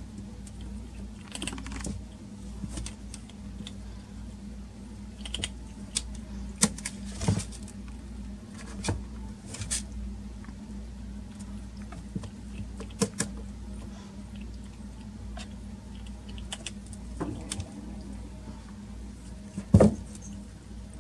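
Kitten digging and scratching in cat litter in a plastic litter box: scattered short gritty scratches and clicks, with a sharper knock near the end, over a steady low hum.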